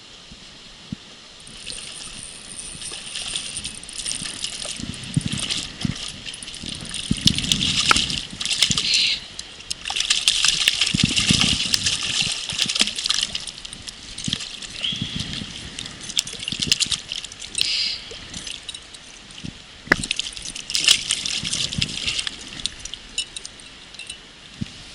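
Water splashing and sloshing in irregular bursts, loudest around 8 to 13 seconds in.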